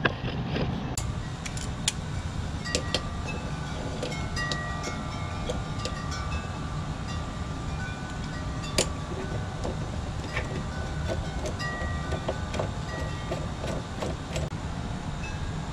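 Scattered metal clinks and short rings of a three-jaw puller's arms and jaws knocking together and against the mower's blade adapter as it is fitted on, over a steady low background rumble.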